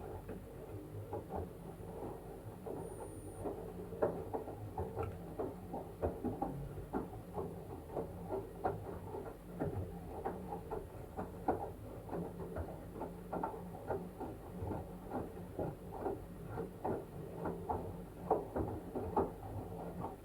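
LG washing machine tumbling a wet blanket through wash water: quick, irregular sloshes and splashes over a low hum. The sound starts and stops abruptly as the drum turns and then pauses.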